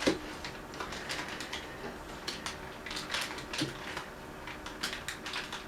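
Light clicks and knocks of kitchen items being handled and set down, starting with a sharper knock, over a faint steady hum.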